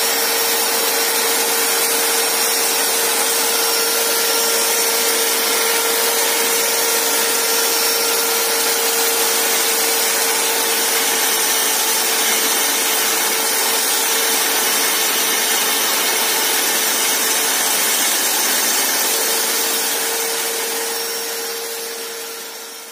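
Stand-mounted electric diamond core drill running steadily as it cuts into a concrete floor: a steady motor whine over a grinding hiss. The sound fades away near the end.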